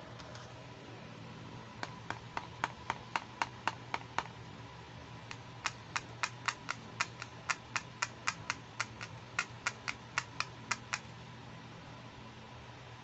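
Pink plastic toy camera clicking as its shutter button is pressed over and over: two runs of quick, sharp clicks, about four a second, with a short pause between them.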